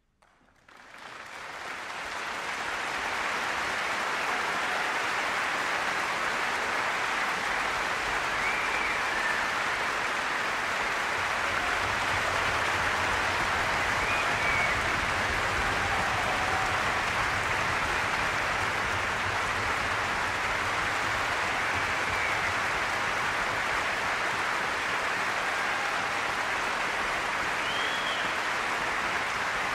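Concert audience applauding, the clapping swelling from silence over about two seconds and then holding steady.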